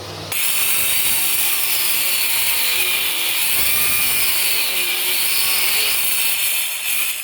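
Stone-cutting saw with a small blade running and cutting a shallow groove into marble fireplace stone. It cuts in suddenly just after the start with a loud, high-pitched noise, holds steady, then drops away near the end.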